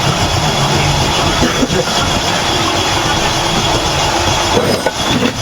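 Loud, steady mechanical rumble with a rattling clatter, without a clear start or stop.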